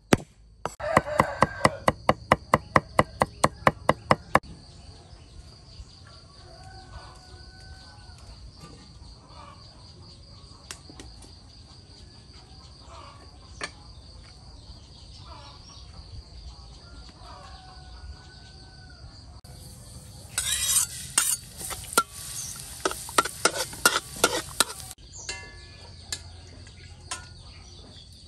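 A cleaver chopping garlic on a wooden chopping board: a quick run of about twenty strikes lasting some four seconds. Then insects drone steadily, with a rooster crowing twice in the background. From about 20 s, food sizzles in a hot wok for about five seconds, with a metal spatula clattering against the pan.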